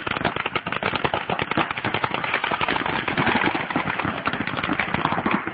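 Several paintball markers firing at once in a dense, rapid stream of pops, the opening volley as players rush from the start position into the bunkers.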